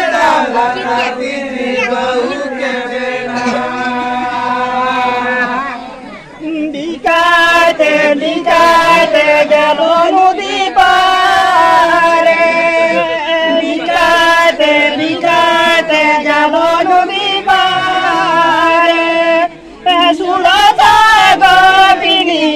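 A group of men chanting a Santhali folk song together in long, held phrases, pausing briefly twice. A few sharp knocks sound now and then.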